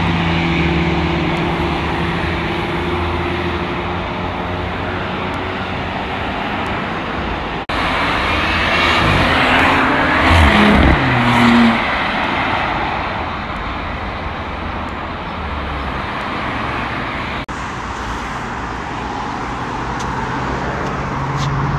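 Cars accelerating past on a dual carriageway over a bed of tyre and traffic noise. A white McLaren's engine pulls away and fades at first. About halfway, a car passes with its engine pitch swinging and then falling. Near the end a Bentley Continental GT convertible's engine comes in louder. The sound changes abruptly twice at edits.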